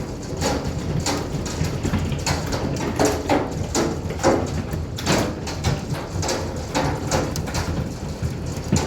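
Hailstorm: hailstones striking hard surfaces in many irregular sharp knocks over a steady rush of heavy rain and hail.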